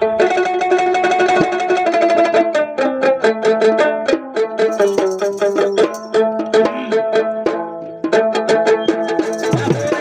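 Small lute-like plucked string instrument playing a folk melody. It holds its first notes for a couple of seconds, then runs into quick, rapidly repeated plucked notes.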